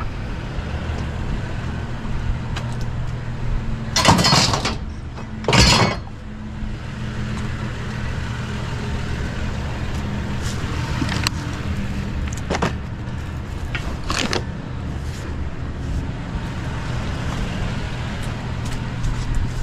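A vehicle engine running steadily with a low, even hum. Two loud scraping or rustling bursts come about four and five and a half seconds in, with a few short knocks later on.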